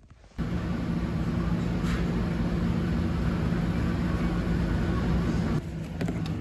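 Front-loading commercial washing machine running, its drum tumbling a load of clothes with a steady motor hum. The sound drops off abruptly near the end.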